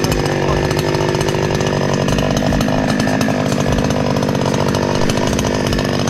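Chainsaw engine running steadily at a constant pitch and level.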